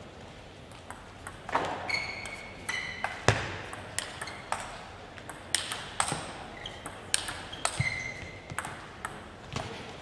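Table tennis rally: the ball clicks sharply off rackets and table in a long, irregular series of hits, starting about a second in. Short squeaks of shoes on the court floor come between hits as the players move and lunge.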